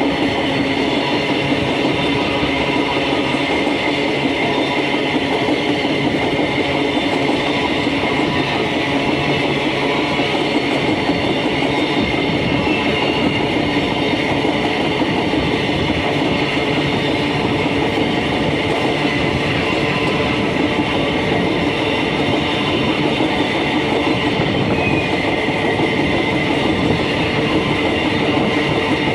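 Freight train rolling past at a steady speed, its wheels clattering on the rails with a continuous rumble and a steady ringing tone above it.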